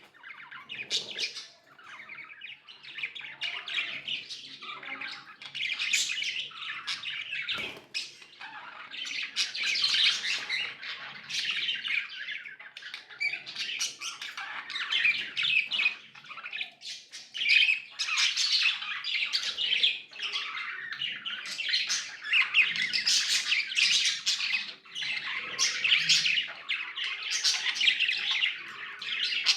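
Several budgerigars chirping and chattering nonstop, a dense stream of rapid high chirps and warbles with louder squawks here and there.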